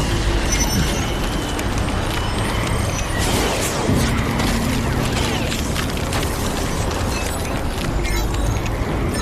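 Storm sound effects of wind and thunder: a dense, continuous rush with crackles running through it, with music underneath.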